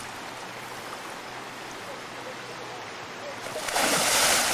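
A shallow stream running steadily, then, about three and a half seconds in, a loud splash as a person plunges bodily into the water.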